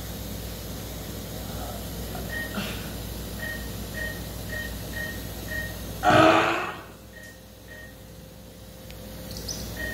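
Steady background hum and hiss of endoscopy-room equipment, with a patient monitor's short high electronic beep repeating about twice a second. About six seconds in comes a brief, loud vocal sound from a person, the loudest thing heard.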